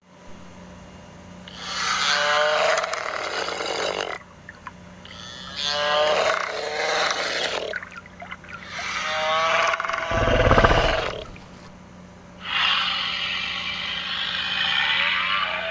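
Sound-effect calls for the hadrosaur Shantungosaurus: four long, pitched, bellowing animal calls with short gaps between them. The third carries a deep low rumble underneath it.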